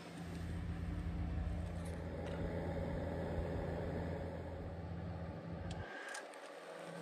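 VW Mk3 Golf VR6 engine idling, heard at the twin-exit back box tailpipes of a straight-through exhaust with the cherry bomb silencer removed: a steady low exhaust note that breaks off briefly near the end.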